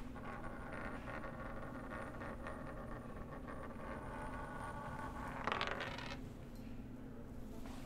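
A spinning top whirring and rattling on a hard tabletop, with a brief louder scrape about five and a half seconds in.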